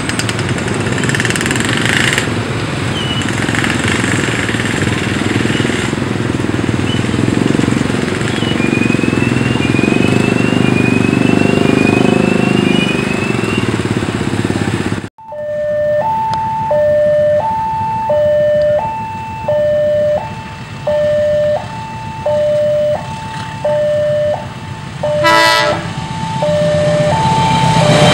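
For about the first fifteen seconds, a steady rushing rumble as a passenger train runs away along the line. After a sudden cut, an electronic railway level-crossing warning alarm alternates between a higher and a lower tone, about one high-low cycle a second, with a brief loud toot a few seconds before the end.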